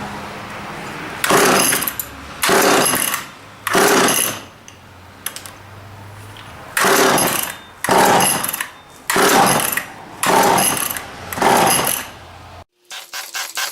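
McCulloch Power Mac 6 chainsaw, choked, being pull-started: eight quick pulls of the recoil starter cord crank the engine over without it firing, because the run/off switch is still set to off. Near the end the sound cuts abruptly to a rapid run of clicks.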